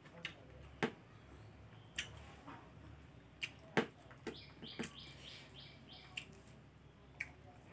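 Soft scattered clicks and smacks of a man eating rice by hand, with a quick run of about five high chirps a little past the middle.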